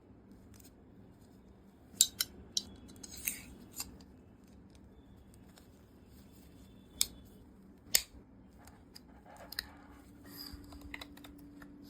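Sharp clicks and snaps from small hard parts being handled, with a short stretch of scraping near the end, as an NVMe M.2 SSD is fitted into its external enclosure. The loudest clicks come about two seconds in and again about eight seconds in.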